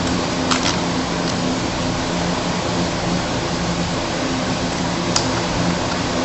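Steady whirring hum of a desktop computer's cooling fans, with a few sharp clicks of keys pressed to move through the BIOS setup menus: three near the start and one about five seconds in.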